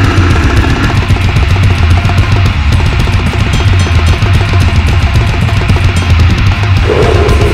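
A deathgore band recording: very fast drumming with dense, rapid strokes over heavy, low distorted guitar and bass. A new pitched part comes in near the end.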